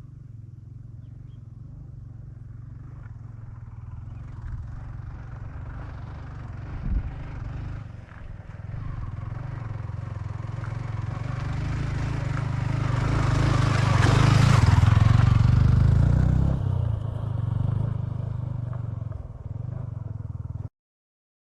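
Low motor-vehicle engine rumble that slowly builds, is loudest a little past the middle, then eases and cuts off abruptly near the end, with a single short knock about a third of the way in.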